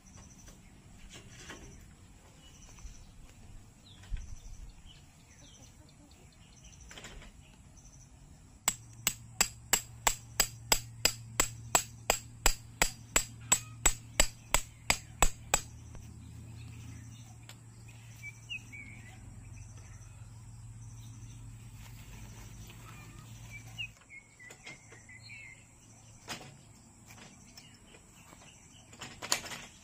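A quick, even run of about twenty sharp knocks, about three a second, lasting some seven seconds, over a steady low hum that stops a few seconds before the end. Insects trill steadily, and birds chirp faintly later on.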